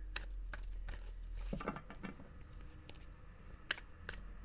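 Tarot cards being handled: scattered soft clicks and light rustles, with a few sharper clicks, over a steady low hum.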